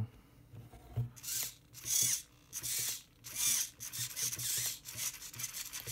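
The RC crawler's steering servo whirs in about six short bursts as the front wheels are steered back and forth from the transmitter. The servo horn is not tightened on its shaft.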